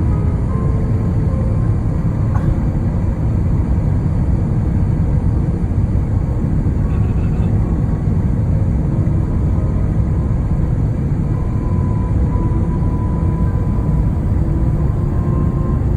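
Airbus A350-900 airliner during landing, heard from inside the cabin as a loud, steady low rumble.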